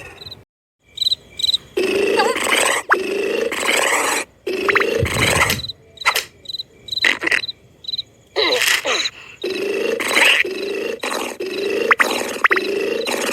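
Cartoon snoring sound effects: a run of short, noisy snores with a steady hum in them, coming about once a second in the last few seconds.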